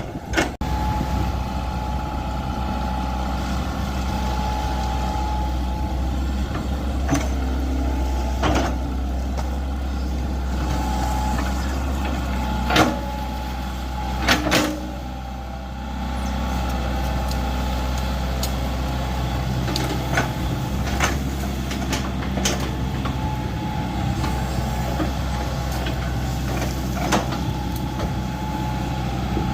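Excavator's diesel engine running steadily while digging a drainage trench, with short sharp knocks and clanks every few seconds, the loudest two about halfway through.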